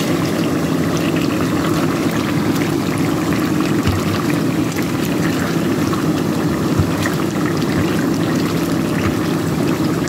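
Pork pieces frying in hot lard: a steady sizzle and bubbling with many small crackles. The water has cooked off and the pork is starting to brown.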